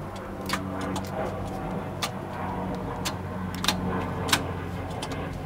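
Yamaha YZF-R6 inline-four engine running steadily, with about four sharp clicks spread through it.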